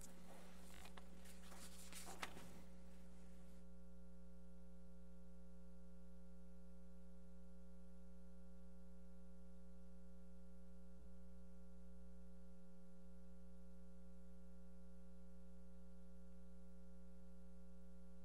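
Faint applause from a small room of people, dying out about three and a half seconds in, leaving only a steady electrical hum.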